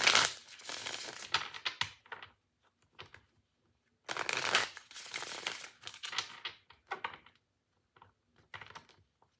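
A deck of tarot cards being shuffled by hand: two runs of rapid flicking and rattling card noise with a short pause between them, then a few light clicks near the end.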